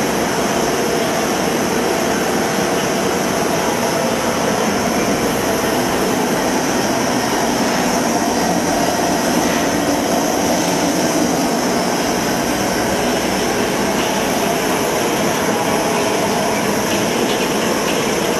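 Steady rushing noise of an electric-stirred kettle popcorn machine heating its oil: the gas burner under the kettle burning, with the stirring motor turning slowly.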